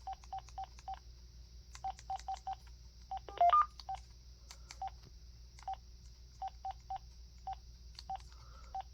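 Key-press beeps from an AT&T E6012B cordless phone handset as its settings menu is scrolled: about twenty short beeps of the same pitch in irregular runs, with one louder, higher two-note beep about three and a half seconds in.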